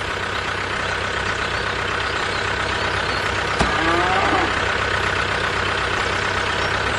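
Truck engine running steadily and slowly growing louder, with a sharp click about three and a half seconds in and a short wavering tone after it.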